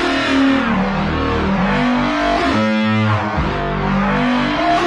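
Eurorack modular synthesizer patch playing a gritty pitched electronic sequence. The notes step around irregularly and their brightness sweeps up and down, driven by the Maestro's stepped-random and smooth-random modulation channels.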